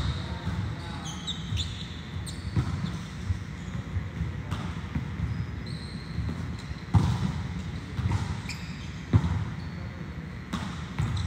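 Volleyballs being struck during serve-receive drills: sharp smacks of hands and forearms on the ball, irregularly every second or two, with short high squeaks between the hits.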